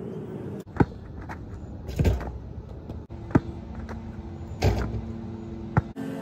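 A basketball bouncing hard on an outdoor court, five sharp bangs about a second and a quarter apart, two of them heavier with a short low rumble.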